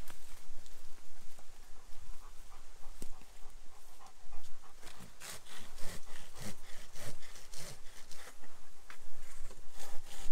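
A dog panting close by. Through the middle comes a run of quick, even strokes of a handsaw cutting wood, about two or three a second, with a few more near the end.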